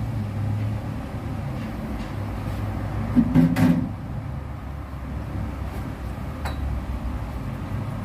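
Steady low hum in a service pit, with a short loud knock and clatter a little over three seconds in and a faint click later on.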